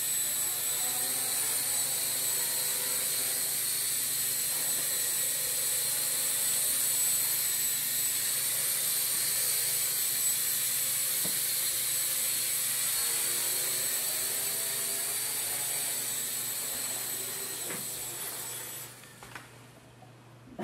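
Blade mQX micro quadcopter's four electric motors and propellers giving a steady, high-pitched whine in flight, cutting out near the end.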